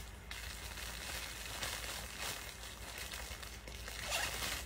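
Fabric rustling as a blouse is pulled on over the head and arms and smoothed down against the body.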